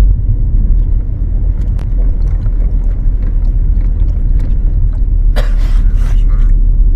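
Steady low rumble of road and drivetrain noise inside a 2012 Ford Focus's cabin as it is driven and steered hard to provoke a creak from the chassis. There are a few faint ticks, and about five and a half seconds in there is a brief hissing burst of noise.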